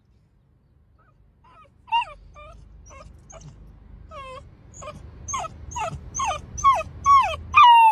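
Basset hound puppy whining: a run of short whimpers, each falling in pitch. It starts softly about a second and a half in and grows louder and quicker, to about two a second near the end.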